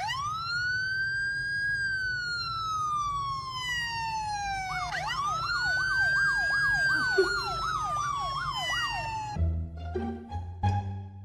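Emergency-vehicle siren: a slow rising and falling wail, then about halfway through a fast yelp of about three sweeps a second laid over a second wail, cutting off near the end.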